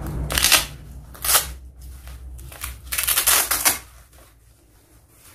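Posture corrector's black waist strap being pulled open and readjusted by hand: three scratchy, tearing bursts, the longest about three seconds in.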